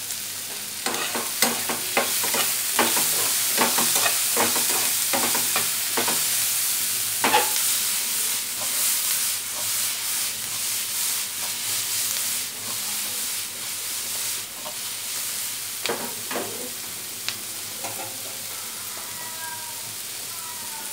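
Diced onion and bell peppers sizzling as they sauté in oil in a frying pan, with a run of sharp clicks and scrapes from stirring and tossing over the first several seconds and a few more near the end.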